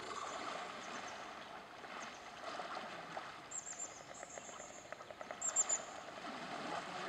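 Water lapping and lightly splashing around an Indian elephant wading in a muddy river, with small clicks and trickles. A bird chirps high, short notes in two quick runs of three, about three and a half and five and a half seconds in; the second run is the loudest moment.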